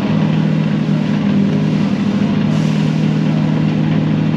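TCR touring race car engine running steadily at a constant speed, holding one even pitch.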